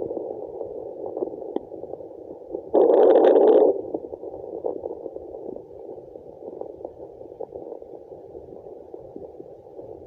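Placental blood flow picked up by a handheld fetal Doppler and played through its small speaker: a steady, muffled hiss. Nearly three seconds in, a loud burst lasts about a second.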